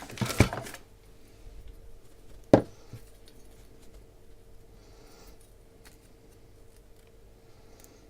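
Handling noise from a rubbery USB-to-Lightning charging cable being folded and moved about on a desk: some clattering in the first second, one sharp knock about two and a half seconds in, then faint rustles, over a faint steady hum.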